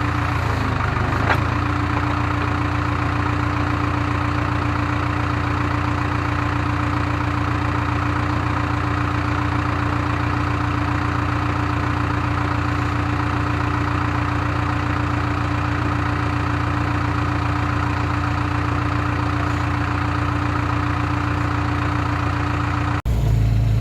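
Case 580K backhoe's diesel engine running steadily, with a single knock about a second in, after which a steady hum sets in over the engine. The sound changes abruptly just before the end.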